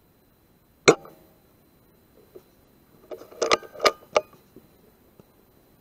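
Weihrauch HW100 pre-charged air rifle firing once, a sharp crack with a brief ring about a second in. About two seconds later comes a quick run of metallic clicks and clacks as the side lever is worked to cock it and load the next pellet.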